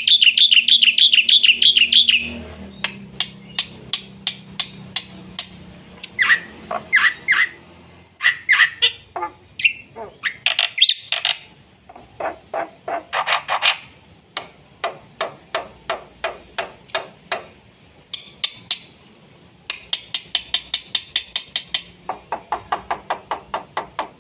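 Black-winged myna (jalak putih) singing a full, busy song: a fast warbling trill in the first two seconds, then long runs of sharp, evenly spaced notes at a few per second, broken by varied whistles and scratchy phrases.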